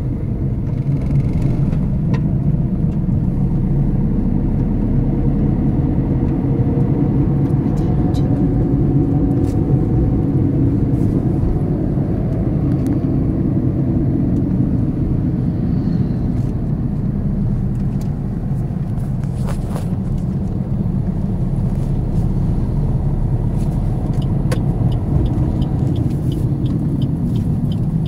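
Vehicle driving along a road: a steady low rumble of engine and road noise, with a few light clicks and rattles and a run of regular light ticking near the end.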